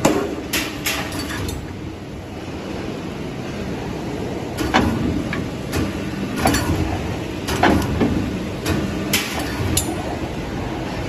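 CNC tube-punching machine running with a steady mechanical hum, while sharp metal clanks ring out irregularly, about ten in all, as a rectangular steel tube is pushed into its punching die.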